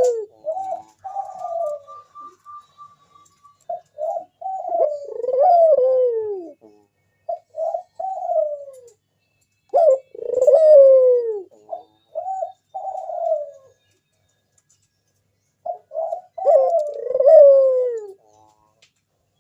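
Local puter dove cooing: repeated low phrases of a few short coos that end in a longer, downward-gliding coo, with pauses of a second or two between phrases.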